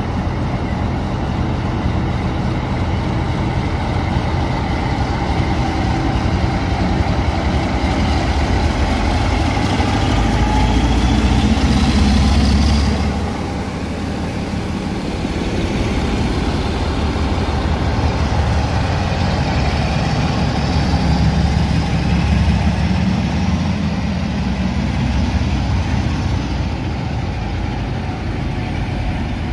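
Class 47 diesel locomotive's Sulzer engine running with a heavy rumble, twice rising in pitch with a climbing whine as it powers up to pull its coaches out. The first rise breaks off suddenly about halfway through.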